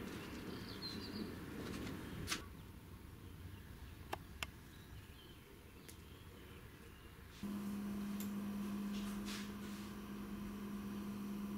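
Faint outdoor ambience with a short bird chirp, then a few sharp clicks. About seven seconds in, a steady low electrical hum starts suddenly.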